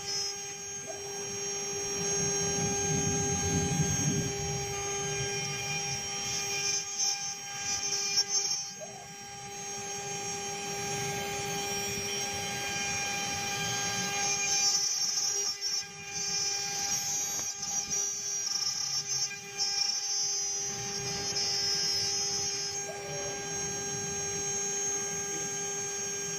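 The spindle of a mini CNC engraving machine whines steadily while a fine engraving bit cuts a metal plate, with a scratchy cutting hiss that rises and falls as the tool moves.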